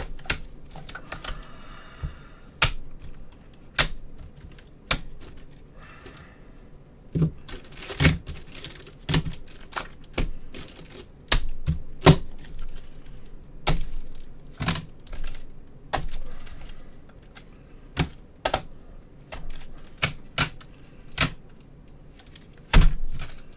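Rigid plastic trading-card holders and top loaders clacking against each other and on the table as stacks of cards are sorted by hand, in irregular sharp clacks about one or two a second.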